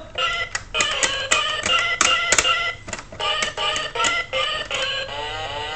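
Toy electronic keyboard sounding a quick run of short, beepy synthesized notes, one for each key pressed, with small plastic clicks as the keys go down.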